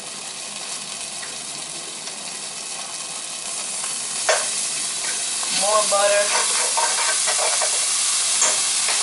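Butter sizzling in a hot nonstick skillet, the sizzle growing louder a few seconds in, while a utensil clicks once and scrapes across the pan spreading it.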